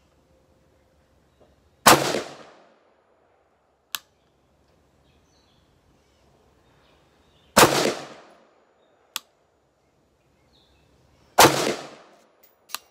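Three single shots from an AR-15 rifle, a few seconds apart, each ringing out briefly. Fainter sharp clicks fall between the shots.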